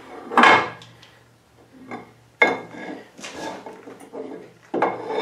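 Cast-iron cross slide of a South Bend 13-inch lathe being moved along the saddle's dovetail ways. It gives a few sudden metal-on-metal clanks and scrapes, the loudest about half a second in.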